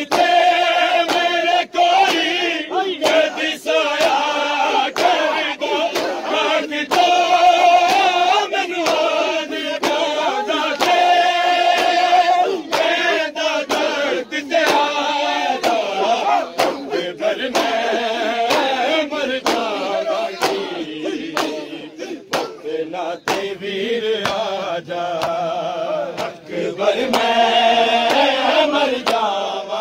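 A crowd of men chanting a mourning noha together while beating their chests in matam, the hand slaps on chests keeping a steady beat under the held, sung lines.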